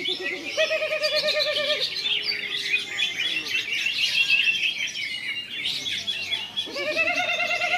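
Cucak hijau (greater green leafbird) singing a long, fast, varied warbling song. Lower quavering notes come in about half a second in and again near the end.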